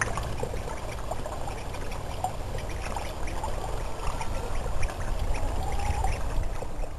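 Water trickling and splashing from a small rock waterfall into a garden pond, with many small splashing ticks over a steady low rumble.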